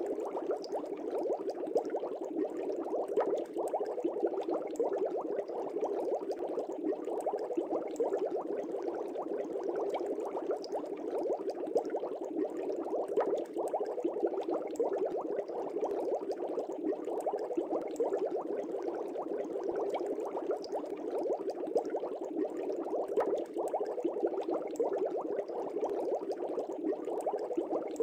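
Aquarium water bubbling steadily, a dense stream of small pops over a low rush of water.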